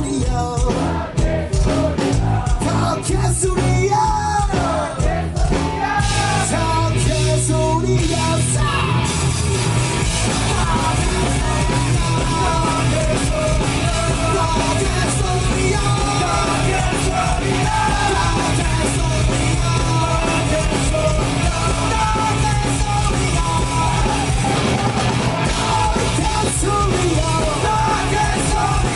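Live punk rock band playing loud, with shouted singing over distorted guitars, bass and drums. The band grows fuller and more driving about eight seconds in.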